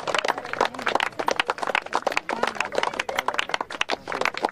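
Several people clapping their hands in an uneven, continuous patter, a few pairs of hands close by, with faint voices behind.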